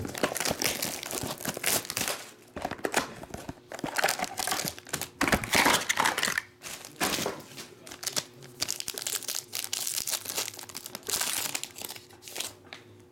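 Plastic shrink-wrap and a Panini Obsidian foil card pack being handled and torn open: irregular crinkling and crackling of plastic and foil, thinning out near the end.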